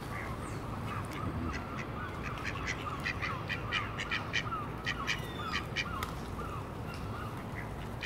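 Birds calling at a park feeding spot: quack-like waterfowl calls and a run of short, sharp chirps through the middle few seconds, over a steady outdoor background.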